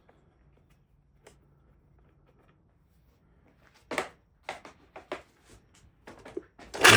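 Scattered light clicks and knocks of a fuel line and its connector being handled and fitted to an old outboard motor, the sharpest about four seconds in.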